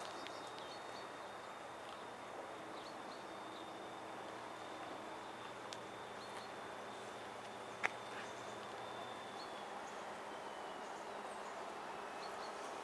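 Quiet trackside ambience: a faint, steady high-pitched insect drone with a few short bird chirps, and a single sharp click about eight seconds in.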